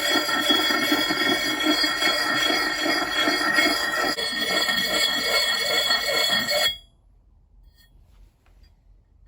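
Lansky sharpening puck worked in rhythmic strokes over a steel axe bit, the axe head ringing with several steady bell-like tones over the scraping. The sound stops abruptly about seven seconds in, leaving near silence.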